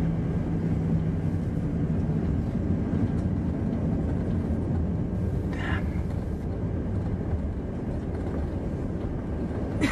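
Steady rumble of a passenger jet's engines and airflow heard inside the cabin in flight, with a low hum that fades away in the first couple of seconds.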